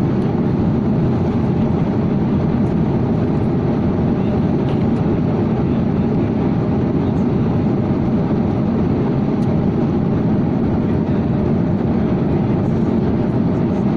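Steady, loud cabin noise of a jet airliner in flight, a low, even rush of engines and airflow.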